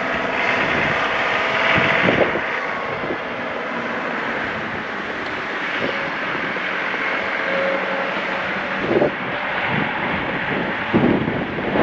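John Deere 2038R compact tractor's diesel engine running steadily under a rush of wind noise, with a few short knocks near the end.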